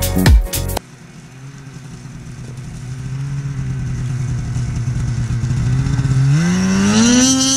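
Intro music cuts off about a second in. After that, a 2019 Polaris Switchback Assault 850 snowmobile's two-stroke twin runs steadily as the sled approaches, growing louder. Near the end it revs up to a higher pitch under throttle.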